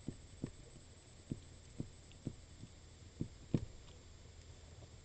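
About seven soft, dull thumps at irregular intervals, the loudest about three and a half seconds in, from a computer mouse being clicked and moved on the desk while writing letters in a paint program, over a steady low hum.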